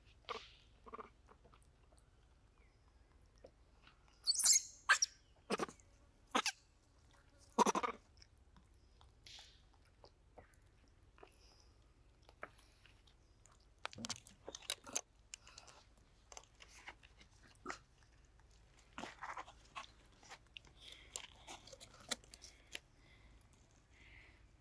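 Monkeys chewing and crunching fruit, a string of short sharp crunches that is loudest between about four and eight seconds in, with softer ones after.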